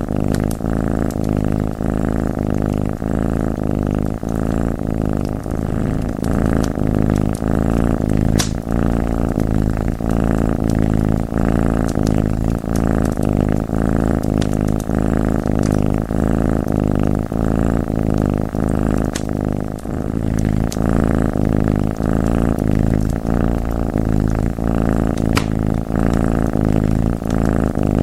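A domestic cat purring steadily in a rhythmic in-and-out pulse, with a few sharp crackles from a wood fire.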